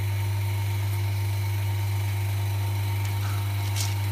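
Vacuum pump of a phone LCD refurbishment machine running with a steady low hum.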